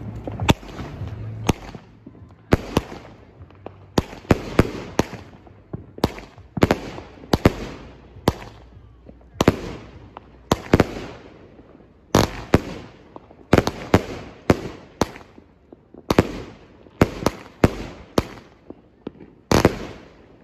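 Consumer aerial fireworks launching and bursting: a long run of sharp bangs at irregular intervals, mostly one to two a second with some in quick pairs, each trailing off briefly.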